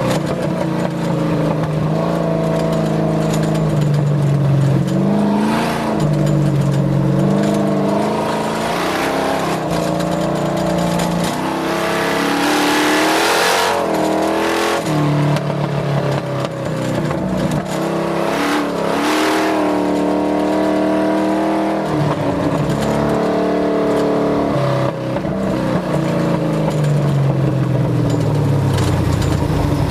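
Skull Rush 250's engine running under way, its pitch rising and falling repeatedly with throttle and speed changes and dropping deeply just before the end. Twice in the middle there is a rush of wind-like hiss.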